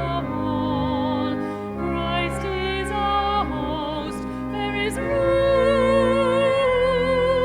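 Classical-style singing with wide vibrato over sustained instrumental accompaniment, with one long held note in the second half.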